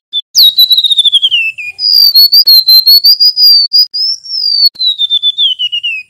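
Golden-bellied gerygone (remetuk laut) singing: a quick trill of high whistled notes falling in pitch, then a long wavering whistle that slides down again near the end.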